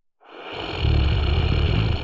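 A person snoring: one long, loud snore that builds up a quarter-second in, with a deep, rattling rumble under the breath noise, and fades right at the end.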